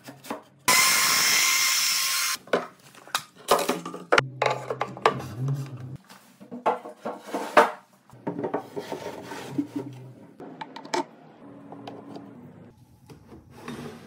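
A power tool runs for about two seconds, about a second in. After it come a string of sharp wooden knocks and clunks, and short scrapes and rubs, as plywood parts and drawers are handled and slid on wooden runners.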